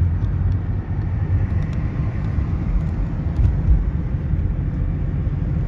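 Steady low rumble of a car on the move: engine and road noise heard from inside the moving car.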